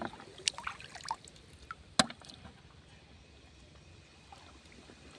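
Shallow pond water splashing and dripping as someone wades and reaches into it: a few sharp splashes in the first two seconds, the loudest about two seconds in, then only faint water sounds.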